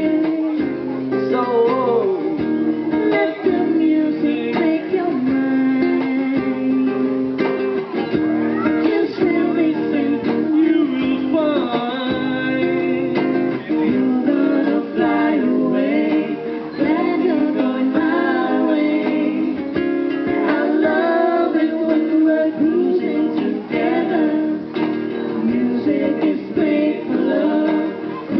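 Live acoustic band music: a singer with strummed acoustic strings.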